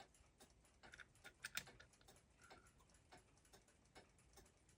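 Faint, irregular small clicks and taps of metal tools and parts being handled on a clock movement, with a quick cluster of louder clicks about a second and a half in.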